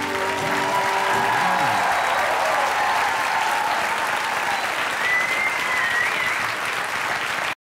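Audience applauding and cheering while the last electric guitar chord dies away over the first second or so; a high whistle rises out of the crowd about five seconds in, and the applause cuts off abruptly just before the end.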